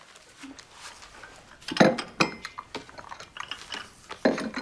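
Dishes and cups being handled: a few separate clinks and knocks, two close together about two seconds in and another near the end.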